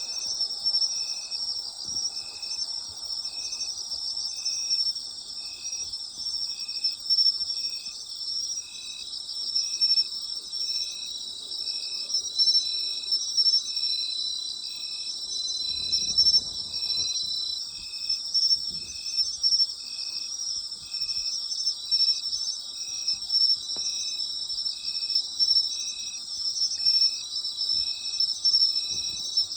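Night chorus of autumn insects, a dense steady trilling, with one insect chirping in an even rhythm about one and a half times a second. A brief low rumble about halfway through.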